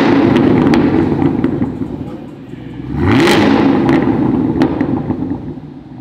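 Chevrolet Camaro ZL1's supercharged 6.2-litre V8 revved in neutral through a Borla exhaust: a rev held high at the start that falls back about two seconds in, then a second quick rise about three seconds in that drops off again, with a few sharp crackles from the exhaust.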